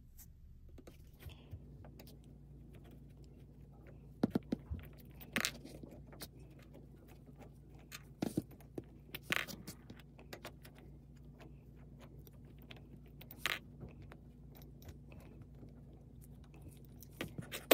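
Scattered sharp metallic clicks and scrapes of a small screwdriver backing the cover screws out of a Tillotson diaphragm fuel regulator, with a quicker cluster of clicks near the end. A faint steady hum runs underneath.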